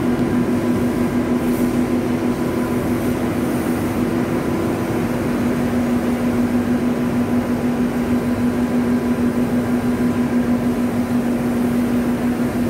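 Steady hum of running cotton-mill blowroom machinery and air ducting: an even drone with one held low tone that does not change.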